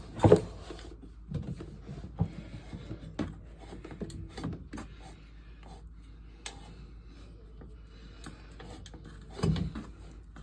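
Scattered knocks and clicks of things being handled, with a loud thump just after the start and another near the end.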